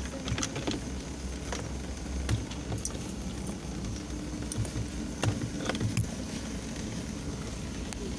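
Car engine idling steadily with a low hum, with a few light clicks and knocks scattered over it, the loudest about five seconds in.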